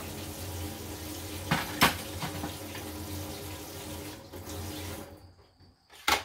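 Tap water running into a kitchen sink, with two sharp knocks about two seconds in. The water stops about five seconds in, and a single sharp click follows near the end.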